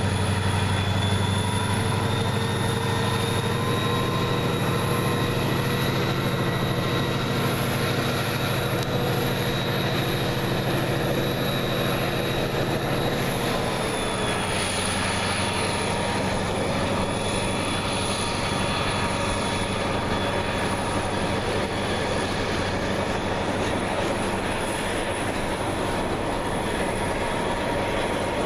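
Diesel freight train passing. The Pan Am Railways locomotive's engine runs with a steady low hum that drops off about halfway through as it goes by, and then freight cars roll past. Steady high whining tones run over it throughout.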